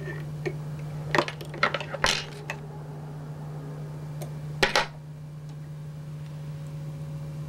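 Small metallic clicks and taps from fly-tying tools being handled, with a sharper double snip a little past halfway as scissors cut the tying thread at the fly's head after the whip finish. A steady low hum runs underneath.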